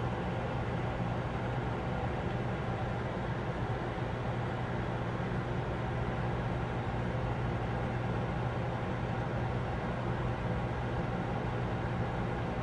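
Microwave oven running: a steady, unchanging hum of the transformer and fan, with no beeps.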